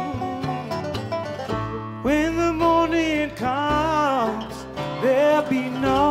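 Bluegrass band playing an instrumental break: fast plucked banjo and guitar over upright bass. About two seconds in, a long lead line enters, with notes that slide up and bend down, most likely the fiddle.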